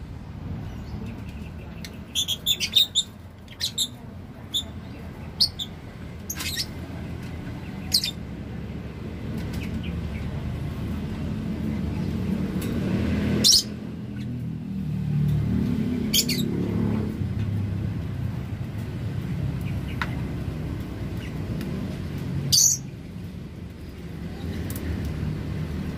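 A pair of caged blue lovebirds giving short, sharp chirps now and then: a quick cluster a couple of seconds in, then single calls spread through the rest, over a steady low rumble.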